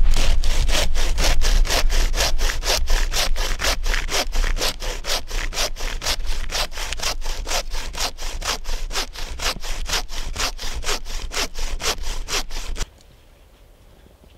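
Bow saw cutting through wood with fast, even push-and-pull strokes, about four a second, stopping abruptly near the end.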